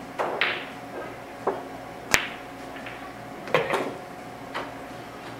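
A pool shot: the cue striking the cue ball and pool balls clacking together and knocking on the table, about seven separate sharp hits, the sharpest click about two seconds in.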